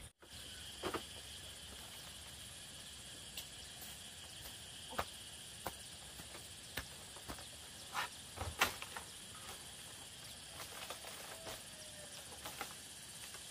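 Steady high-pitched insect drone, with irregular sharp knocks and clicks every second or so, the loudest a little past the middle.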